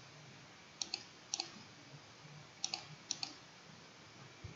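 Computer mouse clicking faintly: several short clicks, mostly in quick pairs, spaced irregularly through a quiet room tone.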